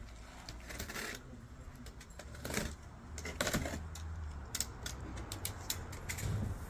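A parcel being opened and its packaging handled: scattered rustles, clicks and rattles.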